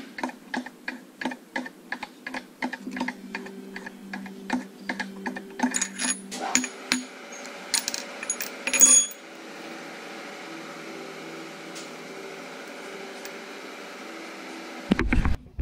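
Metal parts clicking and clinking as a steel collet and a threaded workpiece are taken out of a lathe spindle and set down on the steel carriage. A run of sharp clicks about three a second gives way to louder clinks, the loudest about nine seconds in, then a steady hum.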